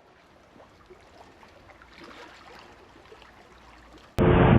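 Faint background hiss with a few scattered small sounds, then about four seconds in a sudden loud rush of wind buffeting the microphone at the beach.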